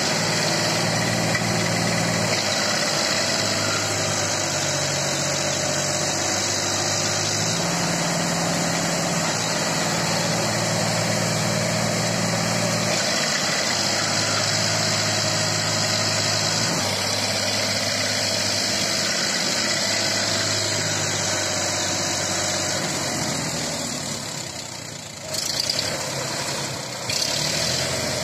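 Sonalika DI-35 RX tractor's diesel engine running under load while pulling a loaded trolley through mud, its note stepping up and down every few seconds. Near the end the sound dips and then jumps louder twice.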